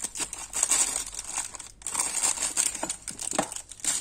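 Paper scrapbooking flowers crinkling and rustling in a clear plastic box as a hand rummages through them, with many small clicks; it breaks off briefly a little under halfway, then resumes.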